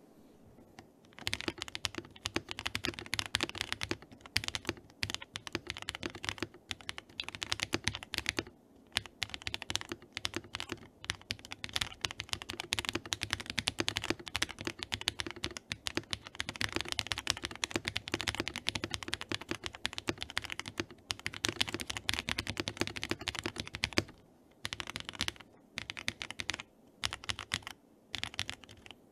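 Typing on a custom 3D-printed mechanical keyboard with PBT double-shot keycaps, its case damped with PE foam, Poron tape and a rice-filled cavity, sitting on a bare wooden desk without a mat. Steady fast typing starts about a second in and stops about five seconds before the end, followed by scattered single key presses.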